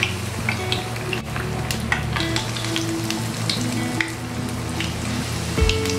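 Breaded chicken nuggets shallow-frying in hot oil in a pan: a steady sizzle with scattered small pops and crackles.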